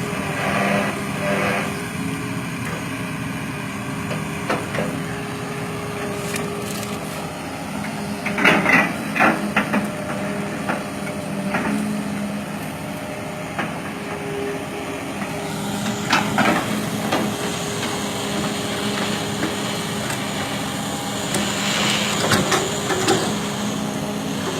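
Hydraulic excavator's diesel engine running steadily, with sharp knocks and clanks in three short clusters: near a third of the way in, about two-thirds in, and near the end.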